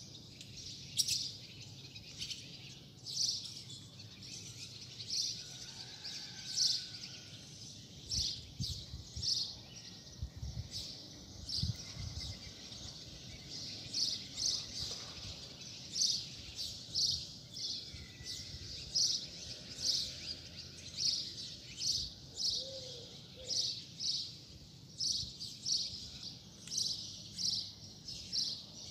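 Small bird chirping: short high chirps repeated about once a second, sometimes in pairs, over faint low background noise.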